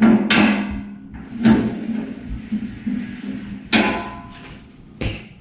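A handful of loud, sharp metal clanks from the car lift's hardware being worked, each ringing briefly, spaced irregularly a second or two apart, over steady background music.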